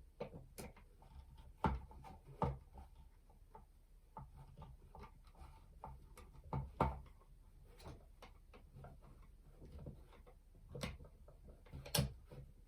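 Screws being fastened into a Deagostini 60 cm Godzilla R/C model kit's frame: scattered light clicks, with a few sharp knocks of the screwdriver and parts, loudest about two seconds in, near seven seconds and near the end.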